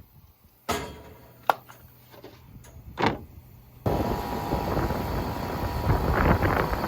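Three separate sharp knocks, the middle one the sharpest. A little past halfway, a steady engine-like running noise starts abruptly.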